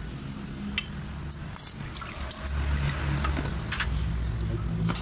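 Washing liquid sloshing, splashing and dripping in a parts tray as a diesel injection pump part is rinsed by hand, with scattered light clicks of the metal part. A steady low hum runs underneath.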